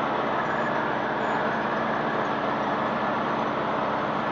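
Large vehicle engine running steadily at a constant speed.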